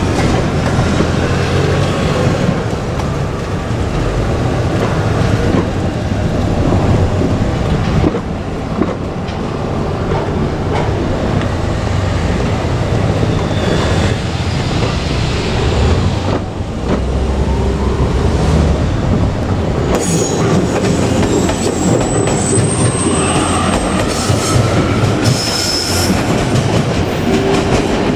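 JR Kyushu 817 series electric train running past at a level crossing, with a loud, continuous rumble and clatter of wheels on the rails. High-pitched wheel squeals come in during the later part.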